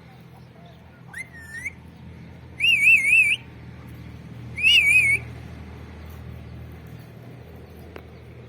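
Pet parrot whistling three times: a short rising whistle about a second in, then two wavering, warbling whistles a couple of seconds apart.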